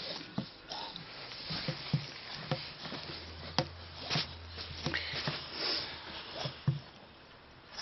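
American Staffordshire terrier sniffing and mouthing at the inside of a car tyre with its head inside it: irregular short clicks and knocks of teeth and muzzle on rubber, with breathy sniffs between them. It quiets near the end.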